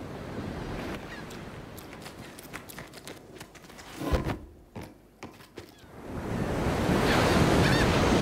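Ocean wave sound effects: a rushing hiss with scattered clicks, a sharp thump about four seconds in, then a loud wave surge swelling up near the end.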